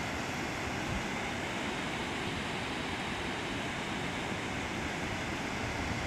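Steady, even rush of water from a creek in spate and a waterfall across the canyon, heard from a distance, with a faint low wind flutter on the microphone.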